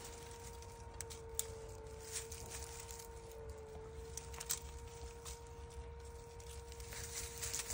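Faint steady hum with a few light crackles of dry leaves and twigs underfoot as the dog shifts about on the leash.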